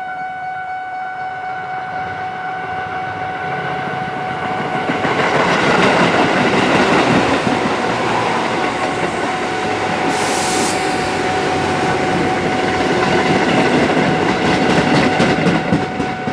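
Level crossing warning bell ringing while an electric commuter train passes, its rumble swelling about five seconds in and staying loud. There is a brief hiss about ten seconds in, and the wheels click rhythmically over the rail joints near the end.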